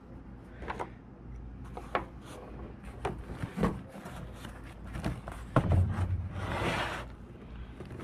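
Cardboard box being handled on a plastic truck bedliner and cut open with an X-Acto knife: scattered knocks, taps and scrapes of cardboard. There is a louder knock about five and a half seconds in, then a longer rasping scrape.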